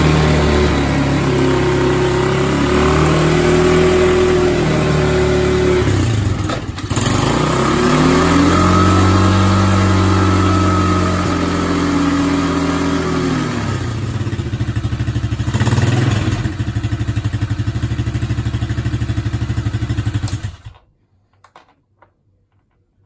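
Small ATV engine running with a rear wheel spinning freely: the revs rise and fall, highest about eight to thirteen seconds in, then settle to a steady pulsing run. It stops abruptly about 21 seconds in, leaving near silence with a few faint clicks.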